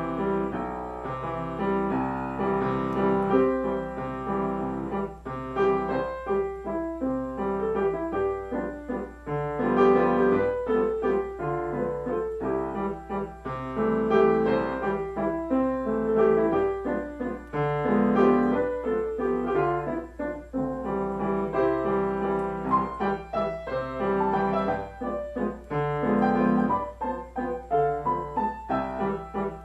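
Solo piano playing a medley of tunes, a melody over chords in a continuous stream of notes.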